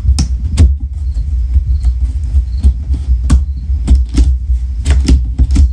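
Cardboard smoke alarm box being handled and its flaps folded and tucked shut: irregular taps, knocks and scrapes over a steady low rumble.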